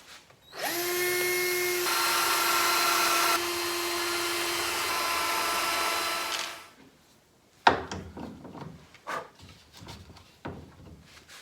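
Power drill drilling screw holes for a hinge in a cabinet door, running steadily for about six seconds with its pitch shifting a couple of times as it bites. A sharp knock and a few lighter knocks follow as the drill is set down and the work handled.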